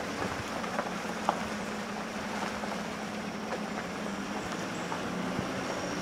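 Car driving along a back road, heard from inside: a steady engine and road noise with a low hum and a few small knocks and rattles.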